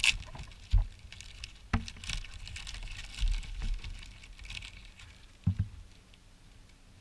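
Handling noise: light rustling and scraping with several sharp knocks, a quick double knock about five and a half seconds in, as a machined aluminium part and its packaging are handled.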